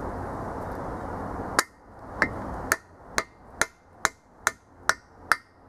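Hammer blows on a freeze plug driver, seating an expansion (core) plug in a small-block Chevy 350's engine block: sharp metal strikes about two a second, each with a brief ring, starting about a second and a half in. Before them a steady rushing noise cuts off.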